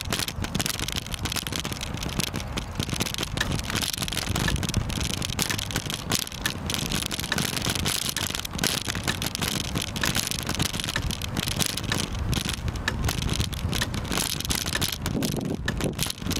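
Continuous rattling and rumble of a moving camera travelling along a paved path, with many small clicks and wind buffeting the microphone.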